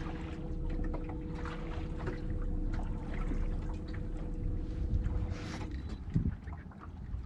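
Water lapping and splashing against a small boat's hull, with low wind rumble and scattered small knocks. A steady hum runs underneath and stops about six seconds in.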